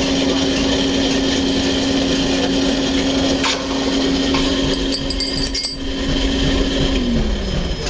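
A workshop machine's electric motor running with a steady hum and grinding noise, then switched off about seven seconds in, its pitch falling as it winds down. A few sharp metallic clicks and clinks sound in the second half.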